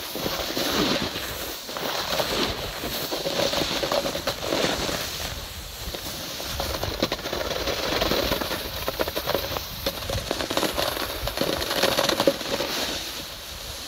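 A snowboard sliding and scraping over snow, an uneven crackling hiss that swells and fades, mixed with wind and rubbing on the camera's microphone.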